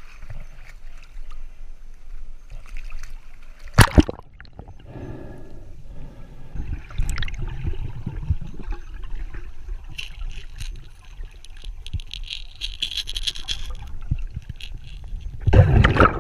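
River water splashing and sloshing as a freediver ducks under, then a muffled underwater rumble and bubbling picked up by a waterproofed action camera. There is a sharp knock about four seconds in and a louder rush of water near the end.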